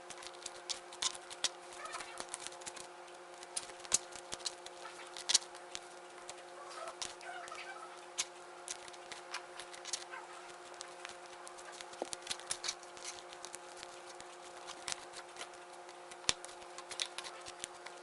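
Glue-and-detergent slime being worked, giving irregular sticky clicks and pops, some much louder than others. A faint steady hum runs underneath.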